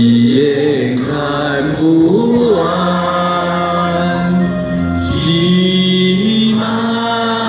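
A large group of amateur singers singing a folk song together over a backing music track, holding long notes that glide between pitches.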